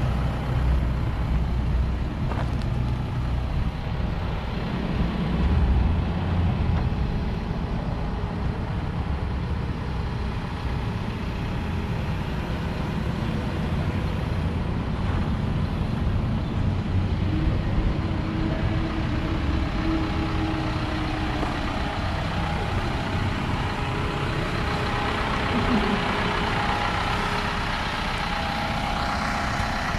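2018 Isuzu NQR truck's engine idling steadily.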